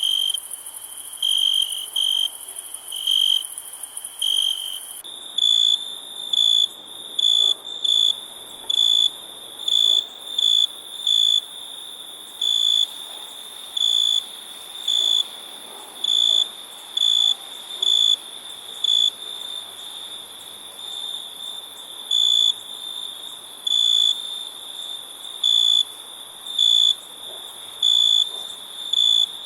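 Crickets chirping in short, repeated chirps about once a second over a steady high-pitched trill. About five seconds in, the chirps shift slightly higher in pitch and come more regularly as a new recording begins.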